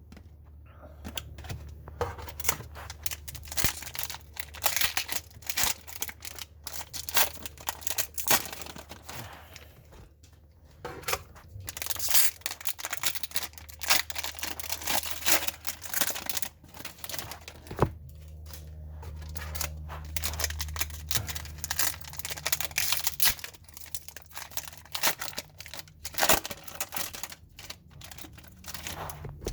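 Trading card pack wrappers being torn open and crinkled: a near-continuous crackling rustle, with short lulls about ten seconds in and again around eighteen seconds. A steady low hum runs underneath.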